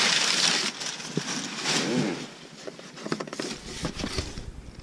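Crumpled brown kraft packing paper crinkling and rustling as it is pulled out of a cardboard box, loudest in the first second, then lighter, scattered rustles and handling knocks.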